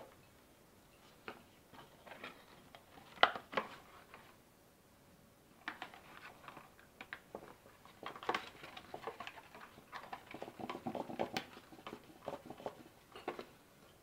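Small clicks, taps and scrapes of hand work: a screwdriver, an aluminium CPU heatsink and a cooling fan being handled and fitted against a cardboard box. A sharp knock comes about three seconds in, then a busier run of clicks and rustles from about six to thirteen seconds.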